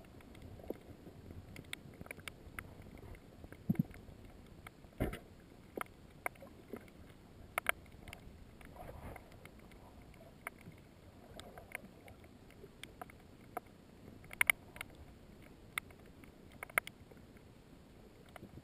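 Underwater sound as picked up through a camera housing: a faint low wash with irregular sharp clicks and knocks scattered through it, a handful of them louder.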